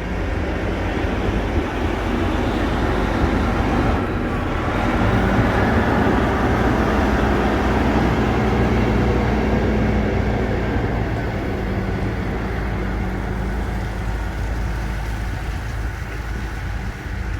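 A motor vehicle running steadily: a low engine hum under continuous rumbling noise.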